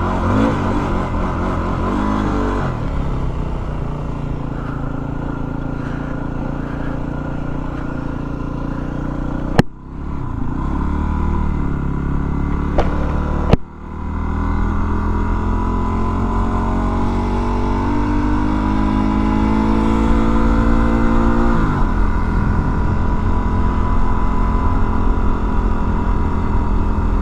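Yamaha WR250R's 250 cc single-cylinder four-stroke engine running under way. Two brief sudden breaks near the middle, then the engine note climbs steadily for several seconds as the bike accelerates and drops sharply, as at a gear change or throttle-off, before running steady again.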